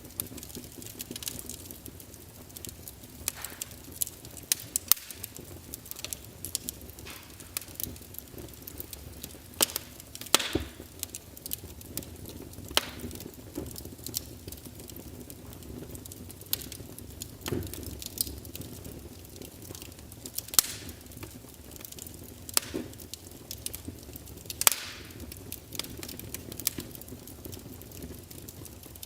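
Wood fire crackling, with sharp irregular pops and snaps every second or so over a low steady hiss.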